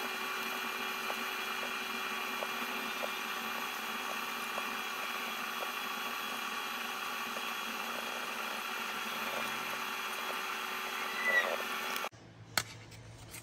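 A steady electronic-sounding drone of many held tones, with faint soft ticks under it. It cuts off abruptly about twelve seconds in.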